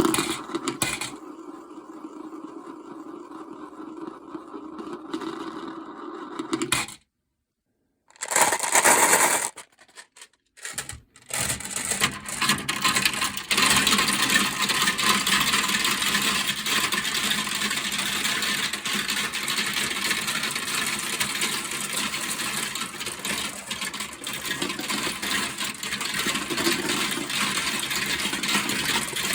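Glass marbles rolling and clacking down a plastic marble-run slope, with gaps of silence where the clips change. From the middle on it becomes a dense, continuous clatter of many marbles at once.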